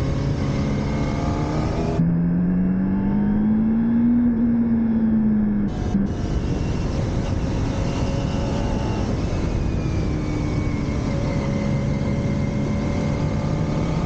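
Motorcycle engine on a riding course, its pitch rising and falling as the rider accelerates and eases off through the corners.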